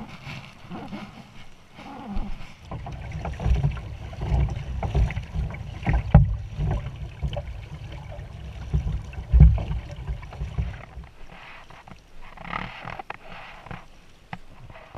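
Kayak paddling: a double-bladed paddle dipping and pulling through the water, with splashing and dripping, over uneven low rumbling thumps against the boat-mounted camera. The low thumps ease off about eleven seconds in, and a hissing splash stands out shortly after.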